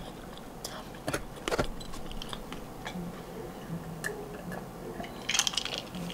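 Small clicks of a metal spoon and mouthfuls of sponge cake being eaten. Then a drink from a glass jar of iced coffee, with ice clinking about five seconds in as the jar is tipped and lowered.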